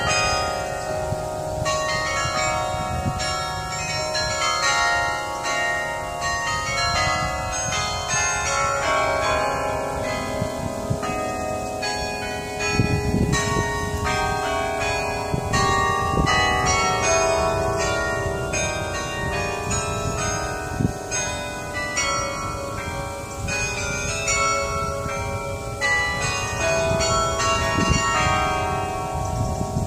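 Bells of the Thomas Rees Memorial Carillon playing a tune, many struck bell notes in quick succession ringing on and overlapping one another.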